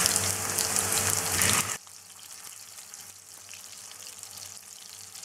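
Beef seekh kababs sizzling as they shallow-fry in hot vegetable oil in a non-stick pan. The sizzle drops suddenly to a much quieter level a little under two seconds in.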